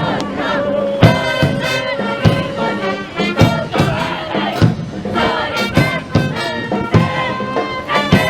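Cheer-squad brass band playing a fight song with a steady bass-drum beat, with voices of the squad shouting along.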